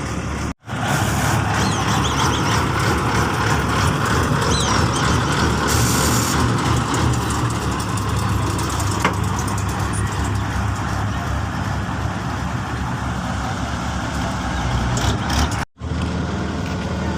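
Heavy diesel construction machinery running steadily, a deep engine rumble with mechanical clatter. It is broken by two split-second gaps, about half a second in and near the end.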